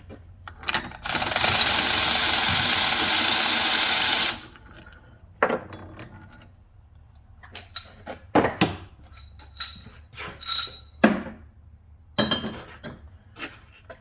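A power tool runs loud and steady for about three seconds, then cuts off suddenly. Scattered metal clinks and knocks of hand tools against the bearing press follow.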